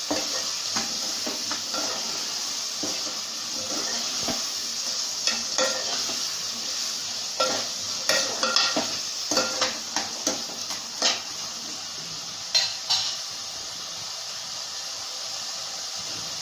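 Boiled chickpeas coated in chole masala sizzling in hot oil in a pan while being stirred, with a spoon repeatedly scraping and clinking against the pan. The scraping comes in quick strokes mostly in the middle, over a steady frying hiss.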